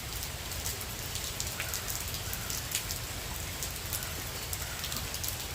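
Steady tropical-storm rain falling, with many sharp ticks of single drops striking close by.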